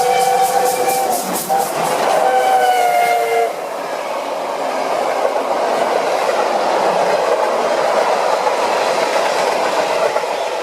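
Steam locomotive's whistle sounding a chord in two blasts over rapid, regular exhaust chuffs during the first few seconds. A steady rumble of the train's wheels and coaches rolling past follows.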